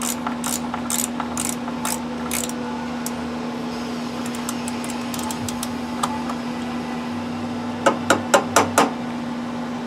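Hand-tool work on motorcycle brake-line banjo bolts: a run of sharp metallic clicks about two a second in the first two and a half seconds, then five loud quick clicks close together near the end. A steady hum runs underneath.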